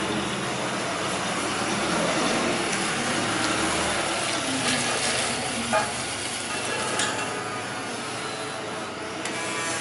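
Mitsubishi FG18N LPG counterbalance forklift running as it drives and turns, a steady low engine note under a continuous hiss, with two short clicks about six and seven seconds in.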